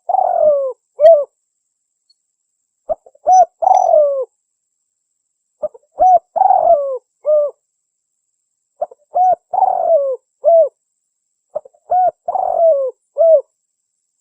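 Spotted dove (tekukur) cooing: five song phrases about three seconds apart, each made of a few short coos around one longer note that falls in pitch.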